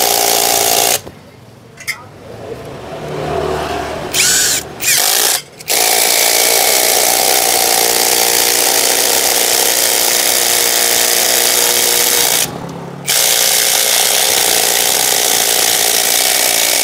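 Yupai 16.8 V cordless impact driver on its third speed setting, driving long screws into a block of wood. It runs in spurts: it stops about a second in, fires briefly around four seconds, then runs twice at length, about seven and about five seconds, with a short pause between.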